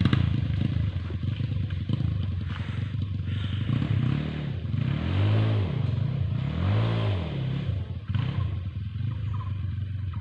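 Trail motorcycle engine running, its pitch rising and falling twice near the middle as the throttle is opened and closed.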